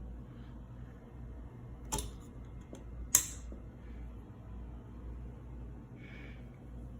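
Harbor Breeze Armitage II 42-inch ceiling fan running in reverse, a steady low hum with a slow pulse. Two sharp clicks come about two and three seconds in, the second the louder.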